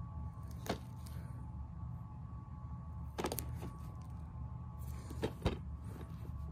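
A shrink-wrapped plastic DVD case being turned over in the hand: three short crinkles and taps of plastic, the last two of them doubled, over steady background music.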